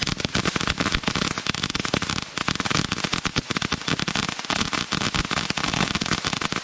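Ground fountain firework spraying sparks with a dense, rapid crackle of many small pops, unbroken throughout.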